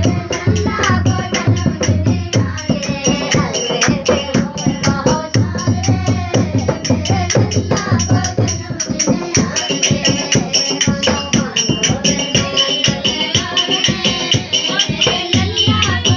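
Music with a quick, steady beat of shaken jingling percussion, like a tambourine or rattle, under a melody line.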